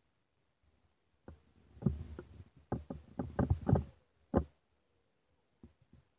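A quick, irregular run of short knocks and thumps, bunched from about one and a half to four and a half seconds in, with a few faint ticks near the end.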